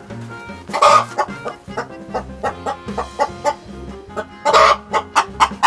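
Nagoya Cochin hen cackling loudly after laying an egg, an alarmed-sounding egg song: one loud call about a second in, another near the end breaking into rapid repeated clucks. Background music plays underneath.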